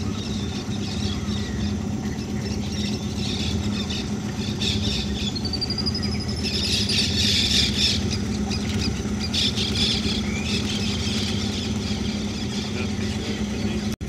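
A boat's motor idling steadily, with high squealing calls from animals in the trees over it: a rising squeal about five seconds in, and the loudest calls about seven seconds in.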